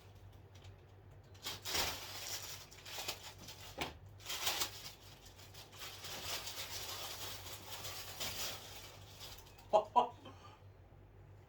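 Intermittent rustling of handled packaging, then two sharp short sounds in quick succession about ten seconds in, the loudest part.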